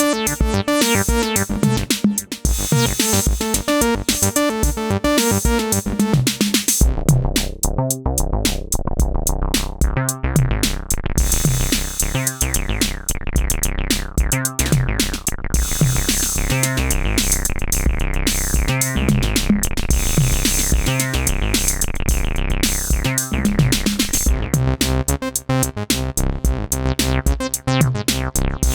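Synthesizer bass line playing over a drum machine beat. About seven seconds in the texture changes to a deep bass whose notes each fall away in brightness, with a break in the pattern about every two seconds.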